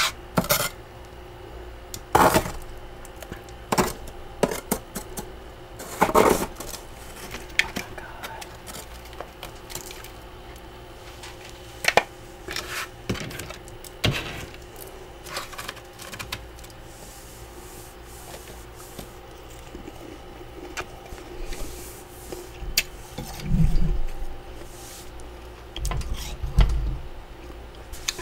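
Plastic scraper chipping and scraping built-up frost off the inside of a freezer: scattered sharp scrapes and clicks a few seconds apart, with two dull thumps near the end, over a faint steady hum.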